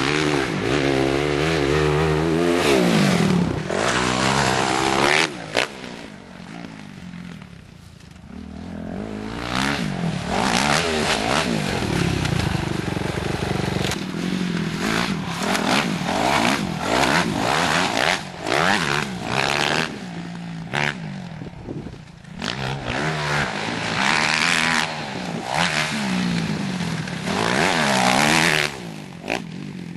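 Motocross dirt bike engine revving and shifting as it laps a dirt track, its pitch rising and falling with the throttle. It drops away for a few seconds about a quarter of the way in.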